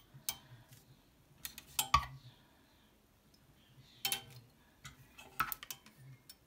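Metal clothes-hanger hooks clicking and clinking as they are hooked into the slots of a chrome steel magic hanger. There are several separate sharp clicks with pauses between, the loudest about two seconds in.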